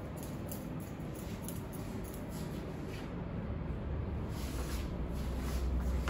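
Barber's scissors snipping hair over a comb, a run of quick, light snips while the top is shortened. A low rumble comes in about four seconds in.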